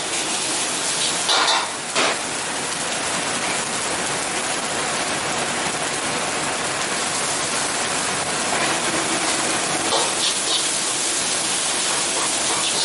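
Noodles sizzling steadily in a wok over a gas burner while being stir-fried, with a metal ladle scraping the wok about a second in and again around ten seconds in, and one sharp clank of the ladle on the wok about two seconds in.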